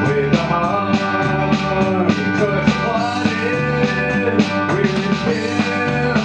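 Live band music: electric and acoustic guitars playing a country gospel song with a steady strummed beat.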